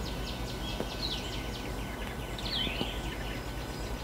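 Birds singing: quick runs of short falling chirps and a few longer curving whistled notes, over a steady low background rumble.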